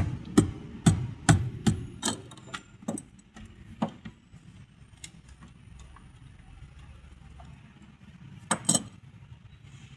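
A run of sharp knocks, about two a second, thinning out over the first four seconds, then a close pair of knocks near the end.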